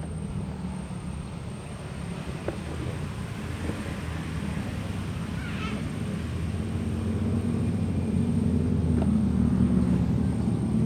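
Low engine drone of a passing boat's motor, growing steadily louder through the second half.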